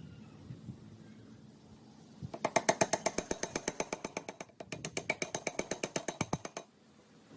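A power tool rattling with fast, even strikes, about a dozen a second, in two runs of about two seconds each separated by a brief break.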